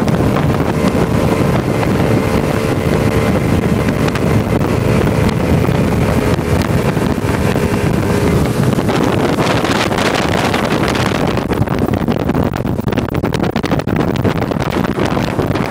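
Mercury outboard motor running at speed on a bass boat, with water rushing in the wake and wind buffeting the microphone. The engine's steady note is clear for the first half and then is largely covered by wind rumble.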